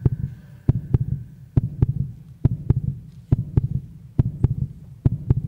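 Deep heartbeat-like thumps in pairs, about one pair a second, each thump with a sharp attack. It is a steady rhythmic pulse used as trailer sound design.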